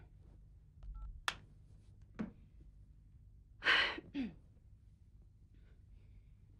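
Quiet room with a couple of small sharp clicks, then a woman's short breathy sigh that falls in pitch at the end, about three and a half seconds in.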